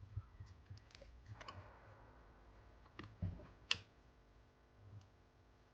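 Faint, scattered small clicks and taps of plastic covers and Phillips screws being fitted into a phone's frame with a small screwdriver, with two sharper clicks a little past halfway.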